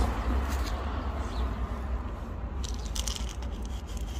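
Dry cat kibble rattling and crunching as it is scooped and poured from a plastic scoop onto paving stones, the crackly clicks bunching up in the second half, over a steady low background rumble.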